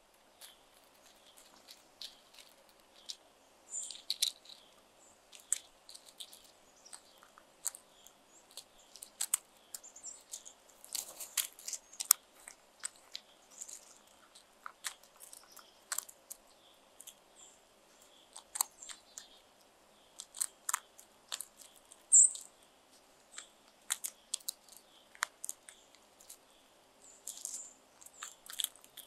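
Crows pecking at food on gravel: irregular sharp clicks and crunches of beaks striking stones and cracking food, with a few short high bird chirps here and there.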